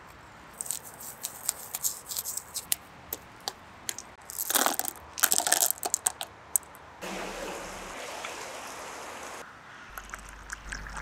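Lumps of charcoal clicking and crunching together as they are handled, then a louder clatter of pebbles dropped into a plastic bottle about halfway through, followed by a steady pouring sound for a couple of seconds and a few small drips and clicks.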